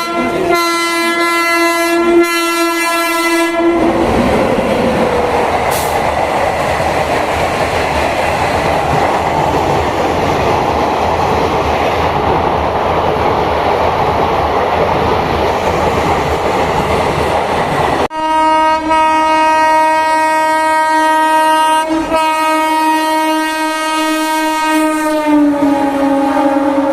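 Indian Railways electric locomotive air horn blaring as an express train runs through at speed, followed by the rushing rumble and clatter of its coaches passing. Another locomotive horn then sounds in long, nearly continuous blasts, dropping in pitch near the end.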